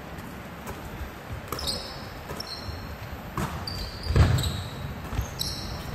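Basketball bouncing on a wooden gym floor, a few scattered bounces with the loudest about four seconds in, mixed with short, high sneaker squeaks from players on the court.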